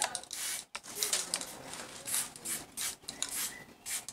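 Aerosol spray-paint can spraying graffiti in a rapid run of short hissing bursts.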